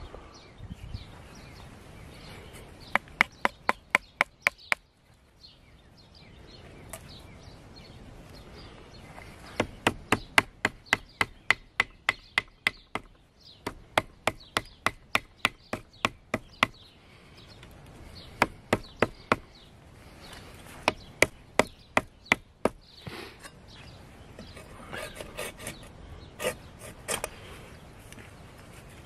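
Wooden peg being driven into a drilled hole through green poles by striking it with a piece of wood: sharp wooden knocks in quick runs of several strikes, about four to five a second, with pauses between runs and lighter knocks near the end.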